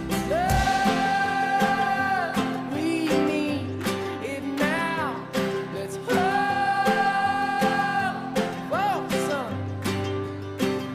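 Background music: a song with a singer holding long notes over guitar, bass and a steady drum beat. Two long held notes of about two seconds each come about half a second in and about six seconds in, with shorter sung phrases between them.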